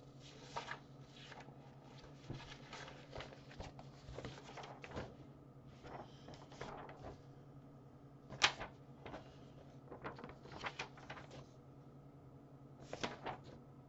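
Sheets of paper being shuffled and slid over one another on a desk: irregular rustles and handling noises, the sharpest about eight and a half seconds in, over a faint steady hum.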